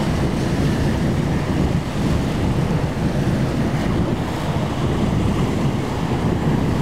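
Strong wind rumbling on the microphone over the steady wash of rough surf and breaking waves.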